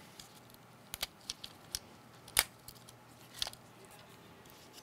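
Light, scattered clicks and taps of a MacBook Air logic board and small tools being handled as the board is lifted out of its aluminium case, about seven in all, the loudest about two and a half seconds in.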